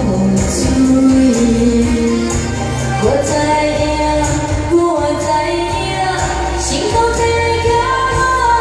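A girl singing a pop ballad melody into a handheld microphone over backing music with a steady beat.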